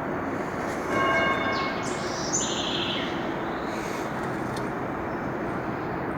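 Steady outdoor background noise, with a short ringing tone about a second in, like struck metal or a distant horn.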